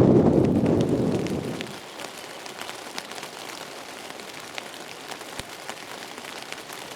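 Rain falling, with many separate drops ticking on a surface. A loud gust of wind on the microphone dies away over the first two seconds.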